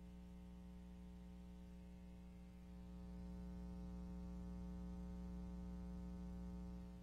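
Steady electrical mains hum and buzz coming through the PA from a faulty electric guitar rig and sound system. It grows louder about three seconds in and fades near the end.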